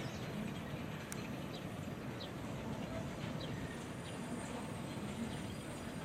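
Small 1928 Amemiya-built narrow-gauge steam locomotive running with its train some way off, a low steady rumble, with faint bird chirps above it.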